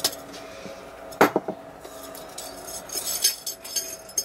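Forged railroad spike knife and steel tongs clinking against a steel anvil as the blade is laid flat on the face to cool: a few sharp metallic clinks, the loudest pair about a second in, then a run of lighter taps near the end.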